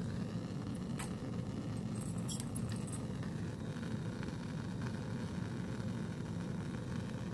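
Steady rushing of a lit Bunsen burner flame, with a few light, sharp clinks of glassware about a second in and again around two to three seconds in.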